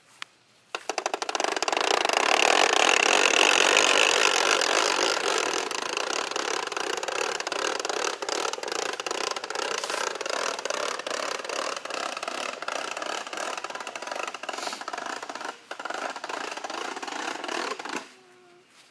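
Plastic toy push lawnmower rattling and clattering as it is pushed fast over grass. The rattle starts with a few quick clicks about a second in, is loudest early on, and stops abruptly just before the end.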